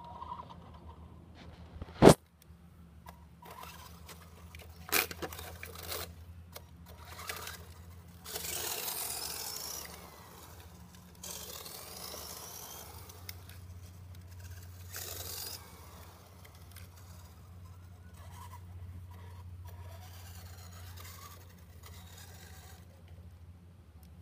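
Radio-controlled car driving on concrete pavement, its tyres scraping and its motor whirring in bursts that rise and fall, loudest about eight to ten seconds in. A single sharp click about two seconds in.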